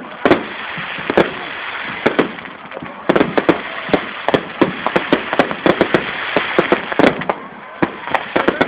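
Aerial fireworks display bursting close by: a rapid, irregular string of sharp bangs over a continuous din, the bangs coming thicker from about three seconds in.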